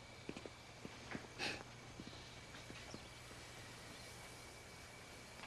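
A single short sniff about a second and a half in, a person smelling a glass of drink, among a few faint clicks; otherwise quiet room tone.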